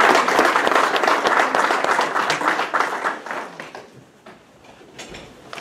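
Audience applauding, many hands clapping together, tapering off and stopping about four seconds in.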